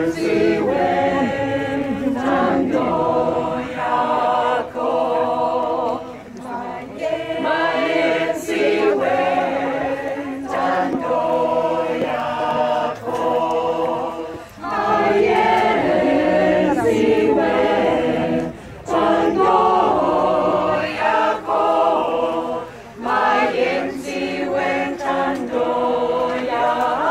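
Combined church choir singing in several voices, in long sustained phrases with brief pauses between them.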